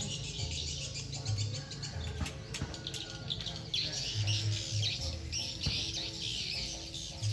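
Background music with a low bass line of repeating notes. From about four seconds in, a busy high chirping, crinkling sound joins it.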